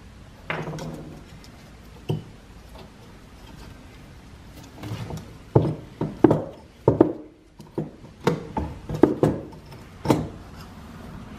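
Metal parts of an old Pickering flyball steam-engine governor knocking and clinking against each other and the wooden workbench as they are handled. A single clunk with a short ring comes about half a second in, and a quick series of sharp knocks follows in the second half.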